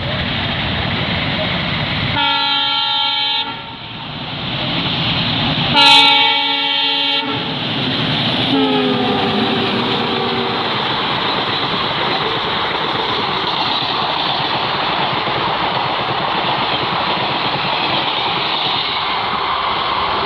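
Indian Railways WDM-3A diesel-electric locomotive hauling a passenger train through a station at speed: two long horn blasts a couple of seconds apart, a falling tone as the locomotive goes by, then the steady rush and clickety-clack of the coaches passing.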